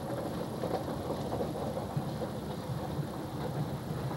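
A vehicle driving on a gravel road: steady engine and tyre rumble heard from inside the cab.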